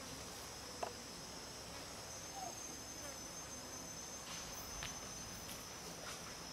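Steady high-pitched insect chorus, crickets or cicadas, running unbroken, with a few soft clicks near the start and in the second half.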